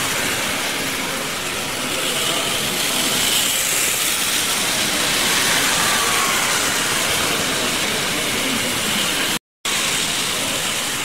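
Steady rushing hall noise with Playcraft model trains running round the layout, their motors and wheels on the track mixed into it. The sound drops out for a moment near the end.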